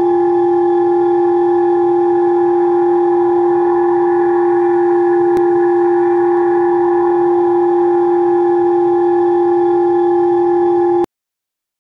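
Steady electronic tone of two held pitches, a lower and a higher one, at an even volume with a faint click about halfway. It is the audio-frequency tones played to the sample in the experiment, and it starts and cuts off abruptly.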